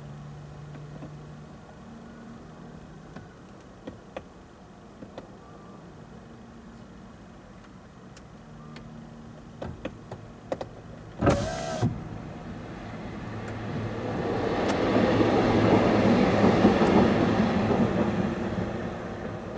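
A vehicle's rumble swelling up and fading away over about five seconds in the second half, preceded by a brief, very loud burst of noise about eleven seconds in.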